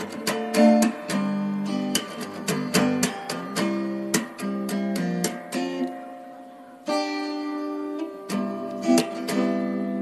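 Background music: an acoustic guitar strumming and picking chords, which fade briefly past the middle before a new chord rings out about seven seconds in.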